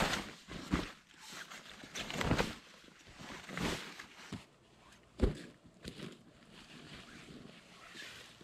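Rustling and crinkling of a Dutch army hooped bivy bag's waterproof camouflage fabric as it is pulled and smoothed by hand, in several bursts, with one sharp knock about five seconds in.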